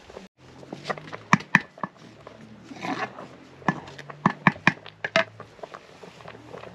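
A wooden spoon knocking and scraping against a metal cooking pot while a thick, slimy greens stew is stirred, giving a string of sharp, irregular taps.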